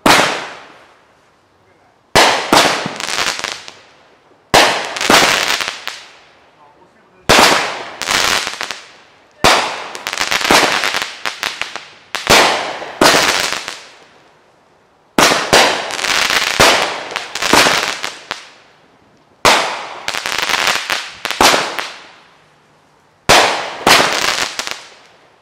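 Aerial fireworks going off one after another, about nine shots in all, spaced two to four seconds apart. Each starts with a sharp bang, followed by a crackling burst that fades over a second or two.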